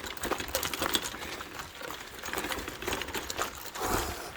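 Footsteps on a forest path, a quick irregular run of small clicks.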